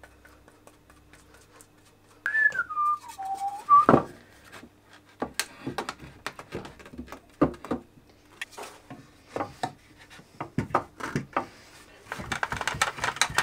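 A person whistles a short phrase of a few notes, falling and then rising, about two seconds in. Then come scattered knocks and clatter of wooden boards and clamps being handled and set down on a wooden workbench.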